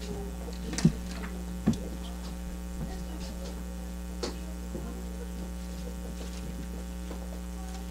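Steady electrical mains hum, with a few sharp knocks about a second in, near two seconds and a little past four seconds.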